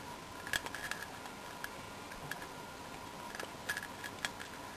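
Small, irregular ticks and clicks from a Fortress combination lock's dial being turned by hand while the shackle is pulled up. The clicks come unevenly, in small clusters about half a second in, around three and a half seconds in, and near the end.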